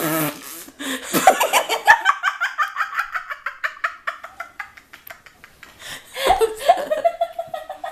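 A woman laughing in a long run of quick giggles, followed by a longer, drawn-out laugh near the end.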